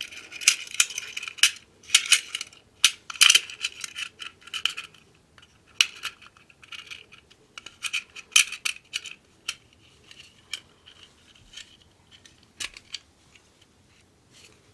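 Aluminum magazine base plate being slid and pressed onto a Glock 43 magazine: a run of sharp metallic clicks and short scrapes, busiest in the first five seconds, then thinning to scattered clicks.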